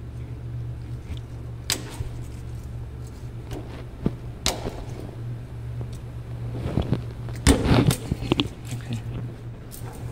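Scissors snipping the straps that hold a flat knitting machine's belts and carriage. There are single sharp clicks about two seconds in and again near the middle, then a louder cluster of clicks and rattles a little past two-thirds through, over a steady low hum.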